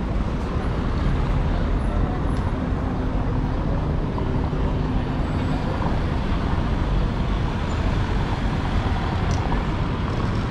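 City street traffic noise: a steady low rumble of motor vehicles, with a faint engine hum in the first half.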